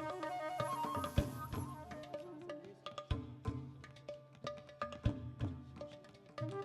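Live ensemble music: a melody stepping up and down over a low steady drone, with sharp percussion strokes. After about two seconds the melody thins out and the strokes carry on, sparser.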